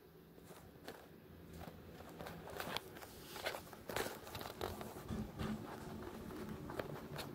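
Handling noise from a phone held close to the microphone: irregular clicks, taps and rustles as it is gripped and moved, growing more frequent from about two seconds in, with the sharpest knock near the middle.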